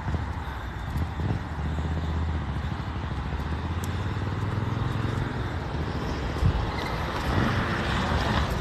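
Engine idling with a low, steady hum that fades out past the middle, over outdoor background noise.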